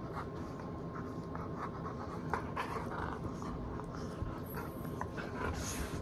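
Husky panting during rough play-biting, with scattered short clicks and snuffles from its mouth.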